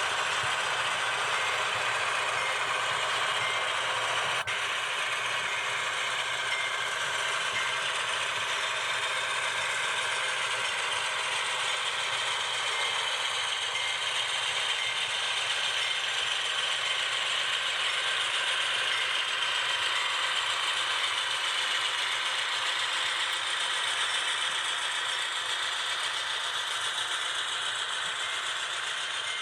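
HO scale ScaleTrains Rivet Counter GE Dash 9 model diesel locomotives running: the DCC sound decoders' diesel engine sound through small onboard speakers, over the mechanical running noise of the models on the track. The sound is steady throughout and thin in the bass.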